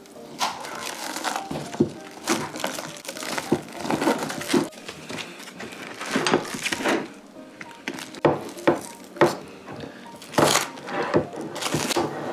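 Plastic cling wrap crinkling and rustling in irregular bursts as it is peeled off takeout food dishes, over light background music.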